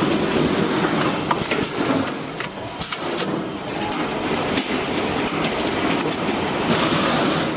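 Machinery of a 5-gallon bottled water filling and bagging line running: a steady mechanical din with scattered clicks and knocks.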